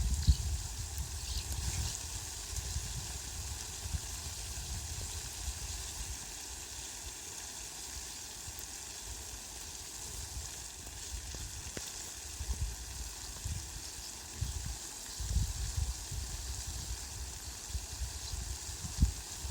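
Heavy rain falling on leafy green plants, a steady hiss. A low rumble comes and goes underneath, strongest near the start and again in the second half.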